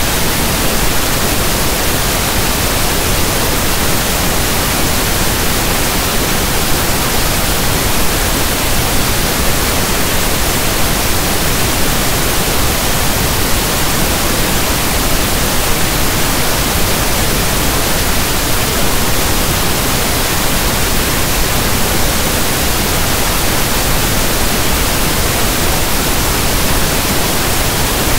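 Steady synthesized pink noise: a soft, even static hiss like a radio station not in tune, with no tones or changes.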